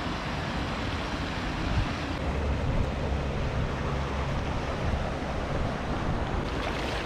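Wind buffeting the microphone: a steady rushing noise with low rumbling gusts, strongest in the middle.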